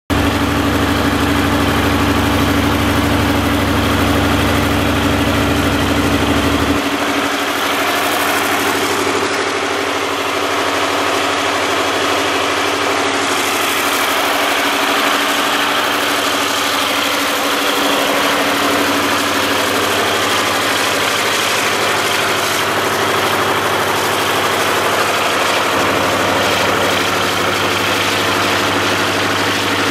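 MTU diesel generator set running steadily: a loud, even engine drone with several held tones. Its deepest rumble drops away about seven seconds in and comes back near the end.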